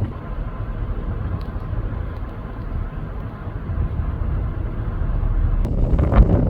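Chevy Suburban engine running steadily, getting louder near the end. It is running on a failing fuel pump whose loose wiring had just been reconnected.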